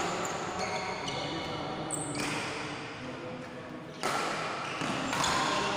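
Reverberant sports-hall sound of a badminton court: sneakers squeaking on the floor among distant voices. The noise jumps up suddenly about four seconds in.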